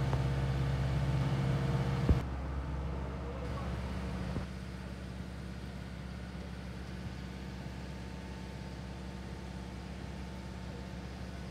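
A motor vehicle engine running steadily, its low hum louder for about the first two seconds. A sharp click comes, then the engine drops to a fainter steady drone.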